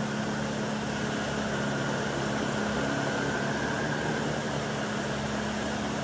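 Upright vacuum cleaner running steadily on carpet with its head set to the lowest height, a steady motor hum with a thin high whine over the rush of suction.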